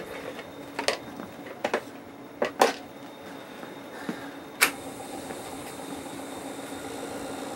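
A few light clicks and knocks, then a sharp click about four and a half seconds in as a 1968 Shibaden SV-700 reel-to-reel video tape recorder is started, after which its motors and spinning head scanner run with a steady mechanical hum.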